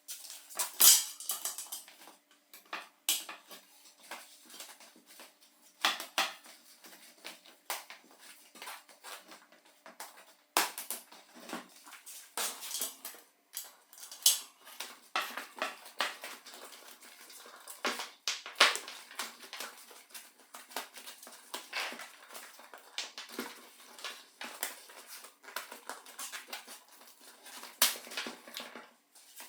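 Irregular metallic clicks, clinks and knocks of small metal bicycle parts and hand tools being handled and worked on, the loudest about a second in.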